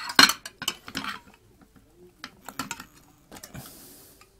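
Table knife clinking and scraping against the inside of an opened tin of pineapple rings as slices are levered out, with a cluster of sharp clinks in the first second the loudest.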